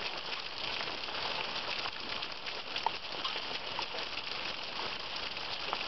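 Steady heavy rain falling, an even hiss with scattered sharper ticks of individual drops striking.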